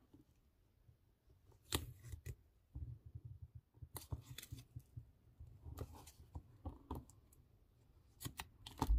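Paper being folded and creased by hand, with scattered crinkles and clicks, then scissors snipping double-sided tape near the end. Under it, repeated low booms of wind knocking against something, the loudest just before the end.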